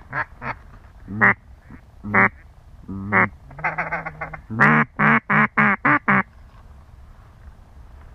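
Mallard duck call blown by a hunter to draw ducks overhead: the tail of a falling run of quacks, single quacks, a fast feed chatter about halfway through, then one long loud quack followed by five quick ones.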